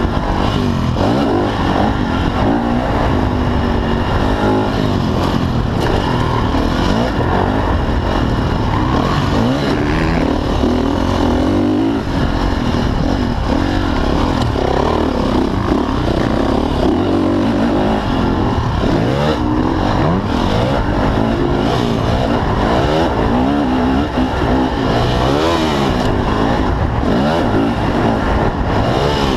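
Motocross dirt bike engine heard on board, revving hard and easing off over and over as the rider throttles through jumps and corners, its pitch rising and falling with each gear and throttle change.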